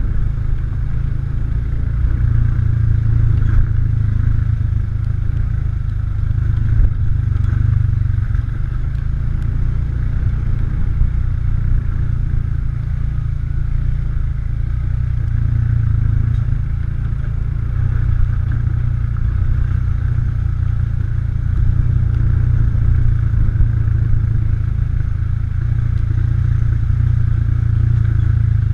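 ATV engine running steadily under way, a constant low drone with small rises and falls in level.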